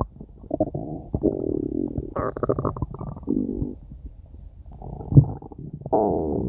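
Stomach growling: an irregular run of gurgles and rumbles, with higher squeaky stretches about two seconds in and again near the end, and a short low gulp about five seconds in.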